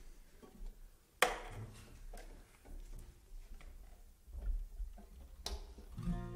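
Faint handling noise from a bluegrass band's acoustic instruments: scattered small clicks and taps, with a sharp click about a second in and another about five seconds in. Plucked string notes begin just before the end.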